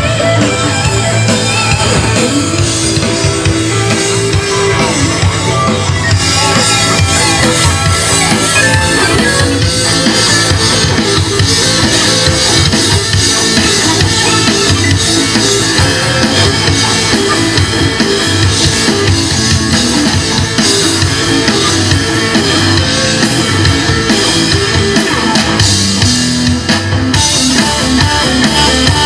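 Live rock band playing loudly: electric guitars over a drum kit with a steady beat, with no singing.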